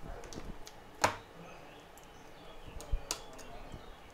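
Light clicks and taps from an opened iPhone X being handled on a workbench, with a sharp click about a second in and another near three seconds.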